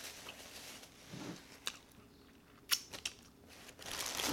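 Plastic takeout bag rustling and plastic food containers being handled, with several sharp clicks, the loudest nearly three seconds in.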